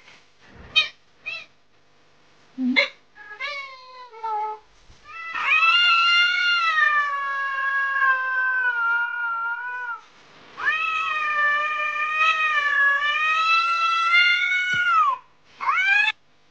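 Cat yowling at another cat in a standoff: two long, drawn-out wavering yowls of several seconds each. They follow a few short sounds and a falling call, and a short cry comes near the end.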